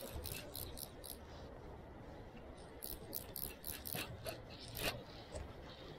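Irregular sharp clicks and ticks over a steady low rush: a few just after the start, then a denser run from about three to five seconds in.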